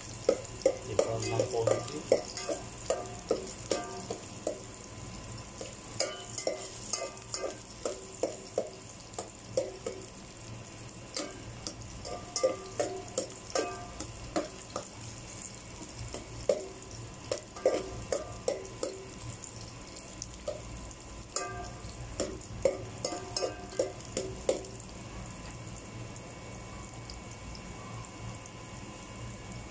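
A metal spoon scraping and clinking against a stainless steel pot as garlic and ginger are stirred while they sauté in oil, over a steady faint sizzle. The clinking comes in irregular bursts and stops about 25 seconds in, leaving the sizzle.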